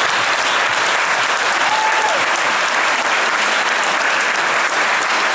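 Audience applauding steadily, with one brief rising-and-falling note from the crowd about two seconds in.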